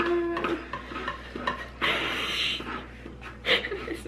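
Paintbrushes and a palette knife scraping and rubbing acrylic paint on canvas boards, with a longer scrape about two seconds in.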